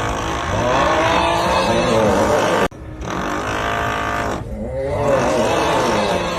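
The 'uuuugh' snoring meme sound, a drawn-out groaning snore whose pitch bends up and down, over steady drilling noise. It is a short loop: it cuts off abruptly between two and three seconds in and starts over.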